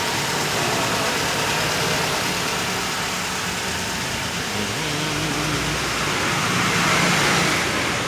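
Car engine idling with the freshly recharged air conditioning running, a steady rushing hiss over a low engine hum that swells briefly about seven seconds in.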